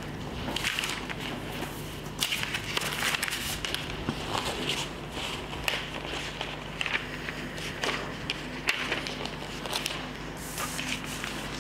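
Sheets of paper being handled and shuffled: irregular rustling and crinkling with a few sharper clicks, over a steady low room hum.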